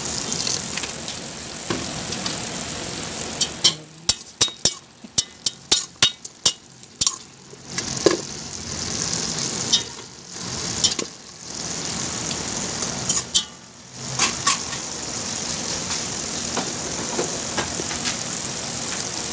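Chicken pieces sizzling as they fry in a pan, a steady hiss. From about four to eight seconds in comes a quick run of sharp clicks, and the sizzle drops away briefly a few times after that.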